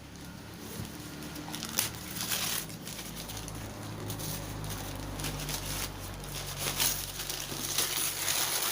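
Packaging crinkling and rustling in irregular bursts as a wrapped sewing machine is unwrapped by hand.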